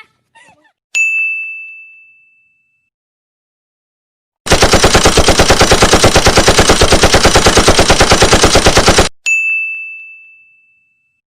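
Gunshot sound effect: a sharp ding that rings out and fades about a second in, then rapid machine-gun fire for about four and a half seconds that cuts off suddenly, followed by a second ringing ding that fades away.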